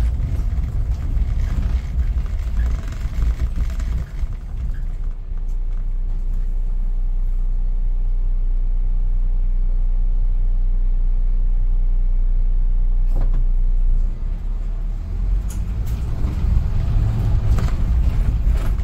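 City bus heard from on board: engine and road noise while rolling, then a steady engine idle while stopped from about four seconds in. A sharp click comes just before fourteen seconds, and then the engine and road noise rise again as the bus pulls away.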